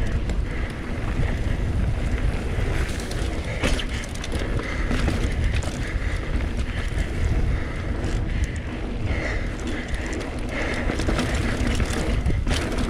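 Mountain bike rolling fast down a dirt singletrack, with wind rumbling on the camera's microphone, the tyres running over dirt and the bike rattling over bumps.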